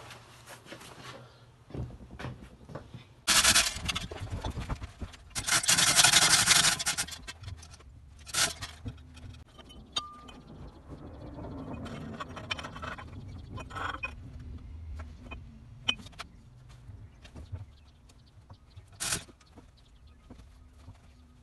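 Metal handling clatter: hoist chains rattling and steel scraping and knocking as a hanging truck engine is lifted and worked onto the steel brackets of an engine stand. The loudest rattling comes in bursts in the first seven seconds, with scattered clicks afterwards and a sharp knock near the end.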